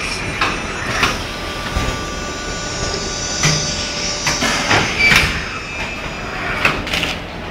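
High-frequency folding-box machine cycling: its sliding table runs along its rails with a series of knocks and clunks as it moves and stops. A steady whine sounds through the middle of the cycle, while the table is away under the press.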